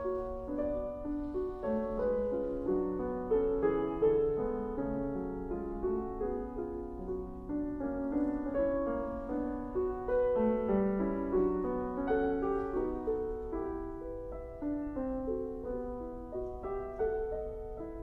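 Steinway concert grand piano played solo: a steady flow of many overlapping notes, mostly in the middle register, growing a little softer over the second half.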